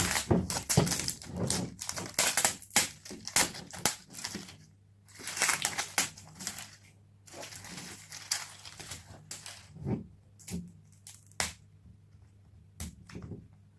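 Plastic wrapping crinkling and crackling as it is pulled and torn off a toy package, in dense bursts for the first several seconds, then sparser clicks and rustles.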